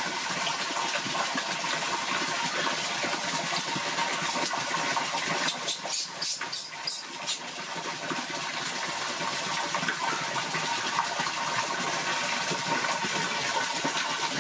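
Stream of water pouring steadily into a large stainless steel basin already full of water, a constant splashing gush. The sound briefly dips and breaks up a few times about six to seven seconds in.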